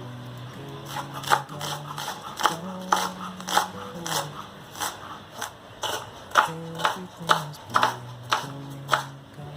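Background music: an instrumental stretch of a pop song between sung lines, with held bass notes and a regular percussive beat.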